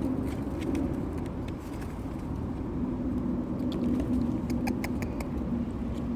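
Steady low rumble of distant road traffic, with scattered light taps and patters.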